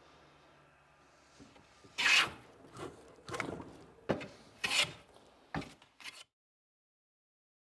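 About six short scraping strokes, rasp-like rubbing, starting about two seconds in and stopping abruptly a little after six seconds.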